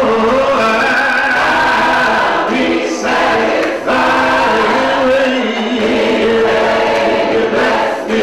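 Gospel choir singing long held chords, breaking briefly about four seconds in before the next chord.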